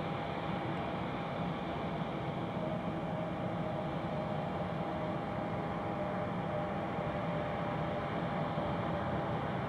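Distant jet engine noise from an Airbus A330-200 rolling out after landing: a steady rush with a faint steady whine.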